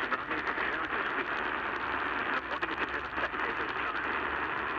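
Weather radio receiver hissing with static, with scattered crackles.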